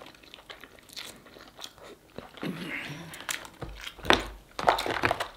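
Eating sounds: chewing and lip-smacking on sauce-covered king crab leg meat, with a run of sharper, louder clicks and smacks in the last second and a half.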